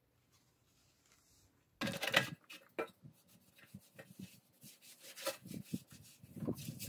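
About two seconds in, the plastic funnel and bottle are pulled from the motorcycle's fuel filler with a loud rustle. This is followed by irregular rubbing, scraping and small clicks as a cloth wipes the metal fuel tank.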